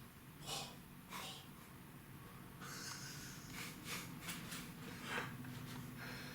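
Faint breathing and sniffs near the microphone over a steady low electrical hum.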